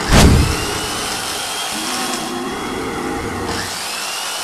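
Heavy impact right at the start, then a steady whirr of large power drills spinning.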